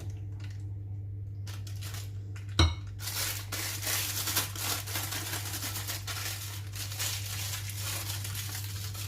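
A sharp knock about two and a half seconds in, then continuous crackly rustling and scraping of a plastic piping bag and utensil as crème pâtissière is filled into the bag.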